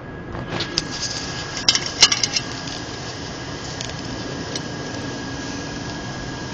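Steady hiss of thunderstorm noise, with a flurry of sharp crackling clicks between about half a second and two and a half seconds in.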